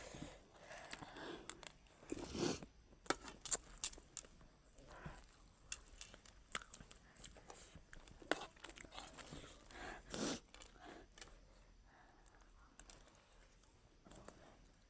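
Scattered crunching and crinkling of a chatpat puffed-rice snack being eaten and handled, with irregular small clicks and a couple of louder rustles, around 2.5 s and 10 s in.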